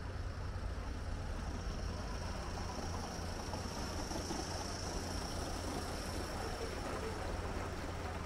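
Large-scale model steam train running past on a curved raised garden-railway track, with a steady hiss that swells as the locomotive passes close by about halfway through, over a steady low rumble.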